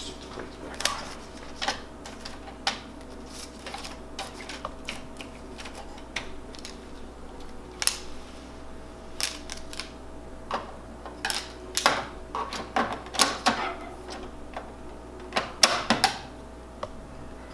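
Clear plastic bag crinkling in the hands, heard as irregular sharp clicks and crackles that come thicker in the second half, over a faint steady hum from the copier.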